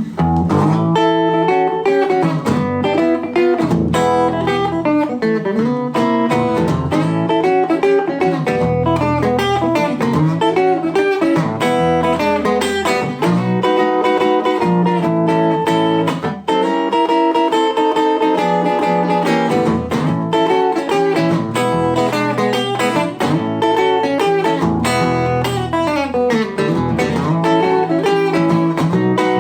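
Ibanez AF95 hollow-body archtop guitar being played without a break, picked notes and chords following one another.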